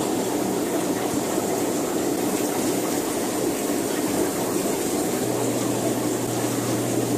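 Aquarium pump and moving water running: a steady rushing noise, with a low even hum coming in about five seconds in.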